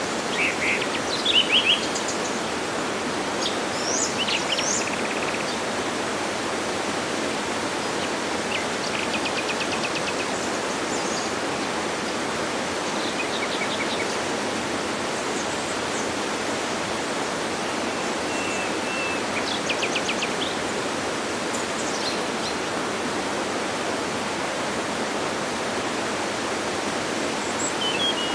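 Waterfall rushing in a steady, even roar of water, with birds chirping now and then over it, including a couple of short rapid trills.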